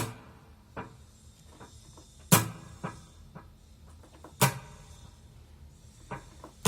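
Sharp clicks and knocks from handling and adjusting the controls of a Zoom G5n multi-effects pedal. There are four loud clicks about two seconds apart, with fainter ticks between them.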